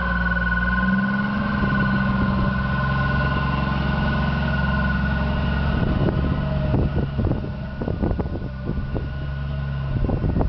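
Snow-plough vehicle's engine running steadily. From about six seconds in, irregular thumps join it.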